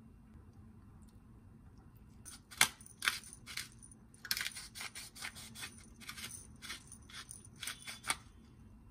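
Spice grinder being twisted by hand in a run of short grinding bursts, about two a second. It starts a couple of seconds in and stops shortly before the end.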